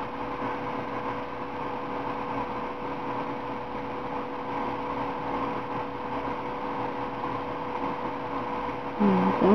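Steady background hum and hiss with one constant tone, unchanging throughout.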